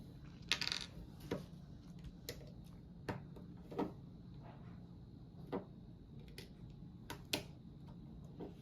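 Small plastic building bricks being handled and pressed together: scattered sharp clicks and taps, with a brief rattle about half a second in.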